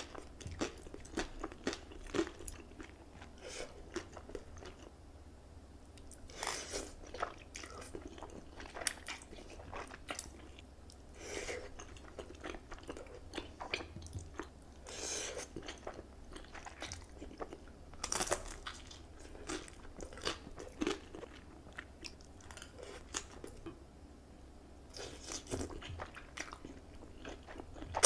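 Close-miked eating of Buldak spicy noodles and sides: wet chewing and crunching with many small mouth clicks, broken by a few longer, louder bursts.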